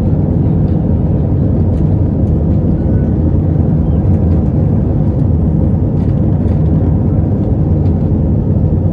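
Steady low roar of an Airbus A320's engines and rushing air, heard from inside the passenger cabin as the jet climbs out after takeoff.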